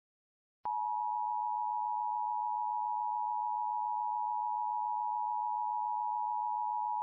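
Emergency Alert System attention signal: a steady two-tone beep that starts about half a second in and holds at one level without a break. It is the alarm that announces an emergency alert, here a child abduction (Amber Alert) message.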